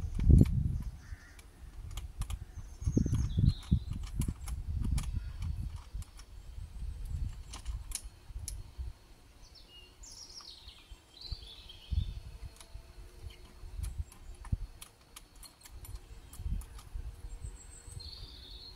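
Small clicks and rattles of a child bike seat's metal mounting bar and clamp being handled and adjusted, over low gusts of wind on the microphone. Birds chirp briefly about ten seconds in and again near the end.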